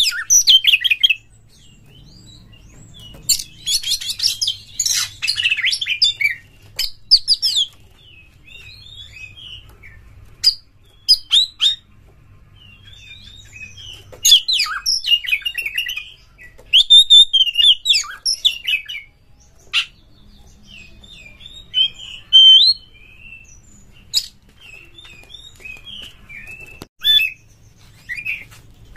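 Oriental magpie-robin singing: loud, varied whistled phrases with sharp clicking notes, in bursts of a few seconds broken by short pauses.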